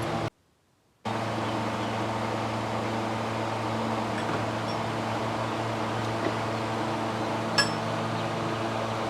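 Steady mechanical hum of an electric fan, with a brief complete drop-out just after the start and a sharp click about three-quarters of the way through.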